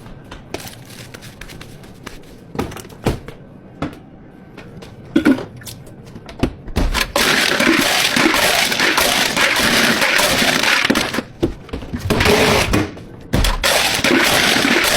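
Scattered knocks and clicks of cups and utensils on a counter, then a countertop blender running loud from about seven seconds in, cutting out briefly twice.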